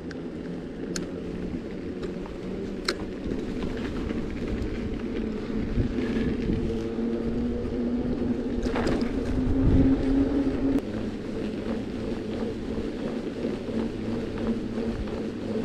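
Steady rumbling noise of a moving vehicle with wind on the microphone. A hum rises slightly in pitch and cuts out about eleven seconds in, with a few sharp clicks along the way.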